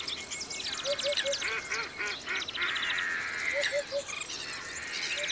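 Reedbed wetland chorus of many birds calling and singing at once, with a low call of three short notes heard twice and quick, evenly pulsed trills above it.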